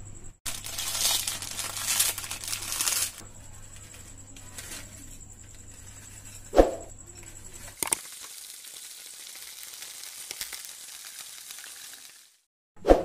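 A Lay's potato chip packet crinkling and crackling as the chips inside are crushed, for about three seconds. A single soft thump follows midway, then a steady faint hiss.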